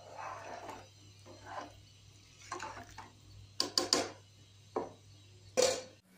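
Large metal spoon stirring rice through watery gravy in a metal cooking pot: repeated swishing strokes, with sharp clinks of the spoon against the pot about three and a half seconds in and near the end. A low steady hum runs underneath.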